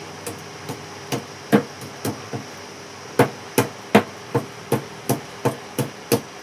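Hammer blows on a burnt ceiling fan while its burnt coil is being taken out: a few separate strikes, then a steady run of about two to three blows a second from about three seconds in.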